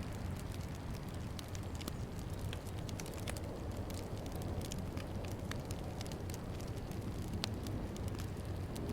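Fireplace fire crackling: frequent irregular sharp pops and snaps, one louder pop near the end, over a steady low rumble.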